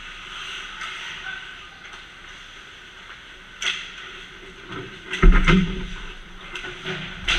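Ice hockey play close to the goal: skate blades scraping the ice, with sharp clacks of sticks and puck. A cluster of loud knocks with a heavy thud a little after five seconds is the loudest moment, and another sharp knock comes near the end.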